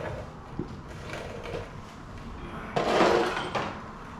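Metal parts of a pulley puller kit being handled: a light tap, then about a second of loud metallic clattering and scraping near the end.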